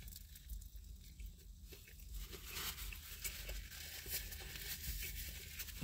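Faint chewing of a mouthful of cheeseburger, with scattered small mouth clicks.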